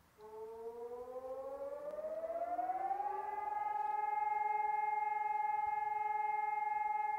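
Civil defence warning siren starting up: its tone climbs in pitch over about three seconds, then holds one steady wail that grows louder.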